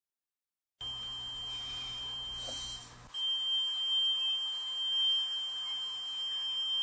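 Ghost-hunting trigger devices going off: a steady high-pitched electronic alarm tone that breaks off for a moment about three seconds in, then sounds again, over a low hum.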